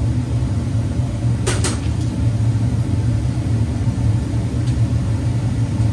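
Dodge Durango engine idling steadily with the hood open. A sharp double click sounds about a second and a half in.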